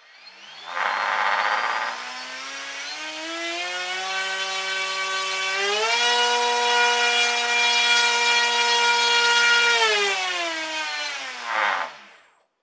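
Brushless outrunner motor (3536, 1500 kV) spinning an 8x5 propeller on a thrust rig: a whine that climbs as the throttle comes up to about half, holds, jumps up in pitch about six seconds in for a burst of throttle, then winds down near the end. A rougher buzz comes in about a second in and again as it spools down, and the owner reckons the prop needs a little more balancing.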